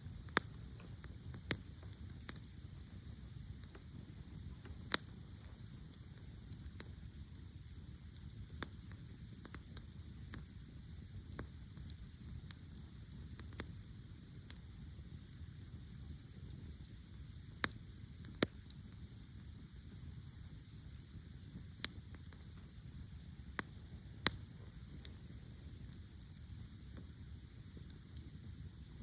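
Campfire crackling with a dozen or so sharp, scattered pops of burning wood, over a steady high chirring of crickets on a warm summer night.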